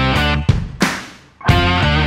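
Rock music with electric guitar chords struck in short, sharp stop-start hits over a heavy low end.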